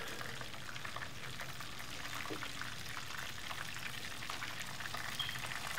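Half a chicken deep-frying in hot oil in a pot: a steady sizzle with fine crackling from the bubbling oil.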